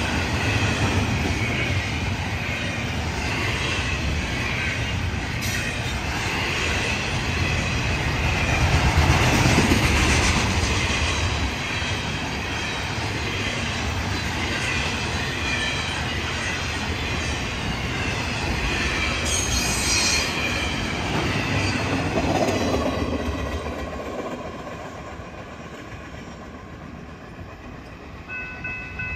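Double-stack container freight train rolling past: a steady rumble of wheels on rail with some wheel squeal, fading away after about 23 seconds. Near the end, a grade-crossing warning bell starts ringing in even, rapid strokes.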